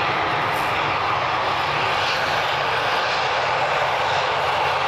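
ATR 72-600's twin turboprop engines running steadily at low taxi power: a constant engine noise with a low hum underneath.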